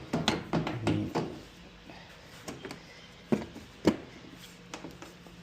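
Scattered clicks and knocks of washer parts and wiring being handled and adjusted by hand, with a cluster in the first second or so and two sharper knocks near the middle.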